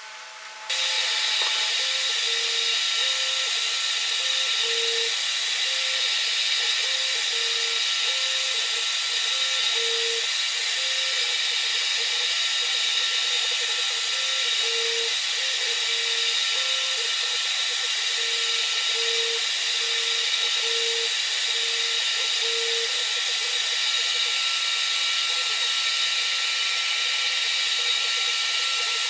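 A power tool starts up about a second in and runs steadily at constant speed, a loud even noise with a faint motor whine.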